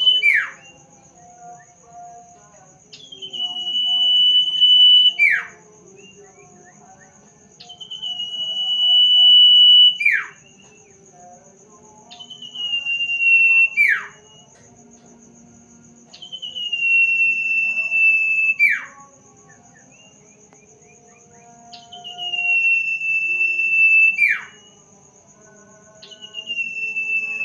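Sirtu bird whistling its call: a long steady whistle of about two seconds, each ending in a quick downward slide, repeated about every four to five seconds. A faint, steady high thin tone runs underneath throughout.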